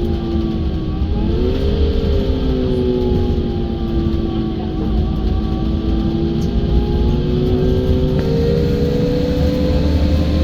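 IIA Menarinibus Citymood 12 CNG city bus under way: a low rumble with a steady whine from the engine and drivetrain. The whine dips and recovers about a second in, then climbs slowly near the end as the bus gathers speed.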